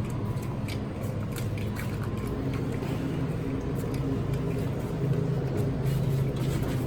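Steady low rumble of a moving car heard from inside the cabin, with a few light clicks and rustles.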